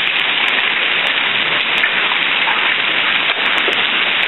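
Hail falling hard: a dense, steady hiss of hailstones striking the ground, with scattered sharp clicks of single hits.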